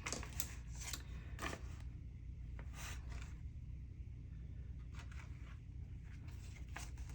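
Faint, scattered rustles and soft scrapes of paper banknotes and envelopes being handled, about five in all.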